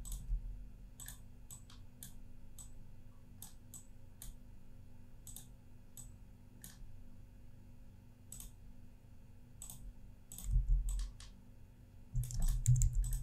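Computer mouse clicking in irregular single clicks, a few every second or two, as anchor points are placed with Illustrator's pen tool. A few louder low bumps come near the end.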